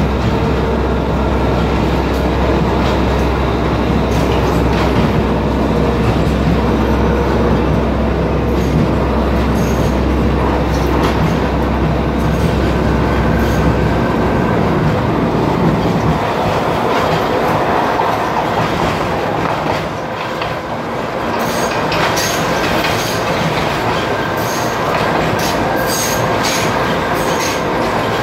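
Train running along the line, heard from on board: a steady rumble and rattle of wheels on rails. A deep low rumble drops away about halfway through, and in the last third the wheels clatter sharply over rail joints.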